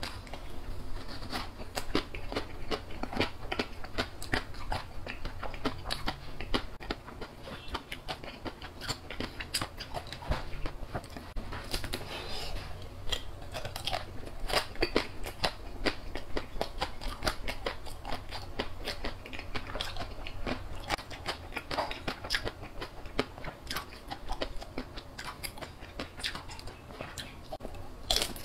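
Close-up biting and chewing of a chocolate-coated frozen banana on a stick, its chocolate-and-nut shell crunching in many short, irregular clicks.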